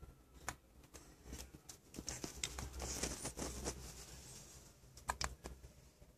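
A baby hiccupping quietly: a string of short, sudden hiccups at irregular gaps, two of the sharpest close together near the end, with a soft rustling noise in the middle.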